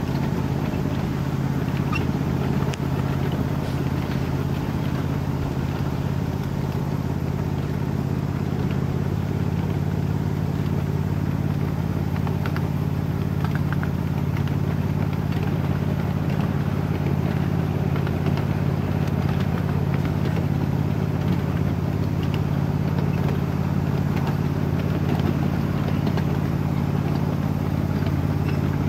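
Small engine of a ride-on miniature railroad train running at a steady pitch as the train rolls along the track, with scattered light clicks and rattles.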